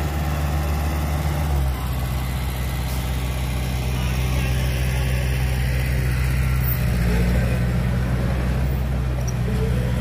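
Heavy machinery diesel engine running steadily, its note shifting slightly about two seconds in.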